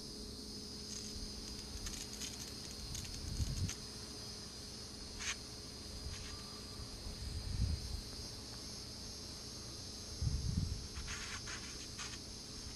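Steady high-pitched drone of insects in summer vegetation, with a few low rumbles and light clicks.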